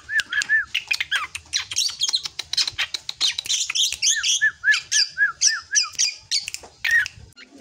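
Juvenile drongo singing: a rapid chattering song of sharp, high notes, with runs of short rising-and-falling whistled notes about four a second at the start and again in the middle.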